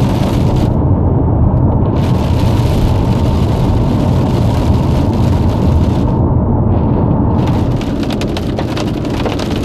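Heavy rain drumming on a moving car over a steady low road rumble, heard from inside the cabin. Near the end a dense patter of sharp hail ticks sets in.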